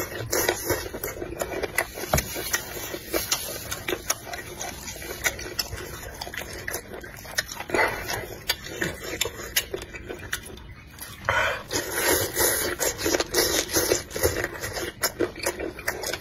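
Close-miked chewing of spicy chicken feet: irregular wet smacks, clicks and slurps from the mouth, with a brief lull a little past the middle.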